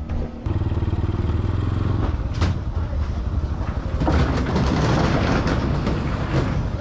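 Small motorcycle engine running steadily while being ridden slowly. About four seconds in, a louder, rougher noise spreads over it.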